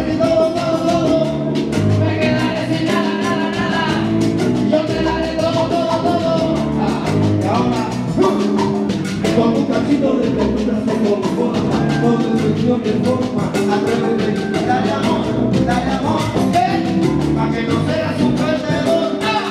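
Live Cuban salsa band playing at full volume, a steady percussion-driven groove with male voices singing over it.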